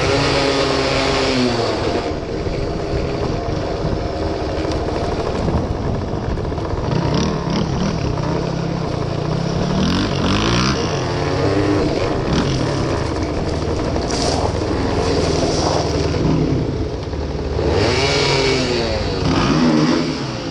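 Engine of a 1973 Suzuki RV75, a small two-stroke single, running while riding over gravel. Its pitch rises and falls with the throttle, with revs climbing at the start, about halfway and near the end. A second dirt bike's engine runs close by.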